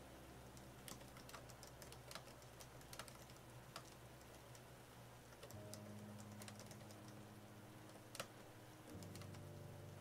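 Fingers typing on an AlphaSmart portable word processor's keyboard: quick, irregular soft key clicks, with one sharper click about eight seconds in.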